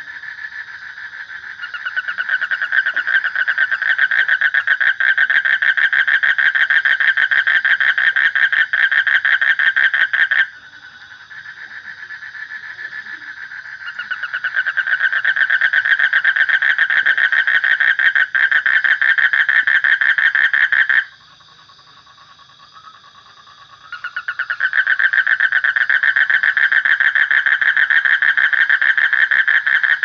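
A frog calling in long, rapid pulsed trills, each run lasting several seconds. It breaks off twice, about ten seconds in and about twenty seconds in, with quieter calling in between before the trill starts up again.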